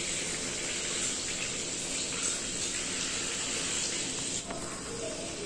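Chicken pakoras deep-frying in hot oil, a steady sizzling hiss. The hiss drops off sharply about four and a half seconds in.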